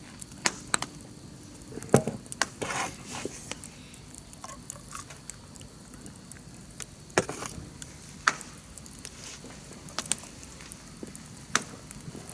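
Wood campfire crackling: scattered sharp pops at irregular intervals over a faint steady hiss, the loudest pop about two seconds in.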